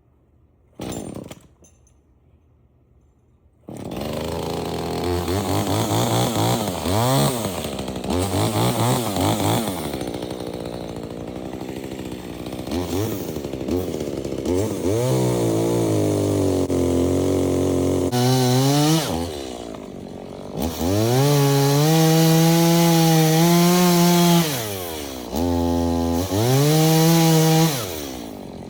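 Chainsaw engine comes in about four seconds in and revs up and down. Later it is held at high revs in long stretches with brief drops, cutting into the trunk of a tree being felled.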